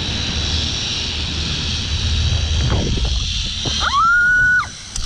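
Wind rushing over the microphone of a camera riding a zipline, with a steady high whir from the trolley running along its steel cable. About four seconds in, a short high-pitched squeal rises and is held briefly, then cuts off.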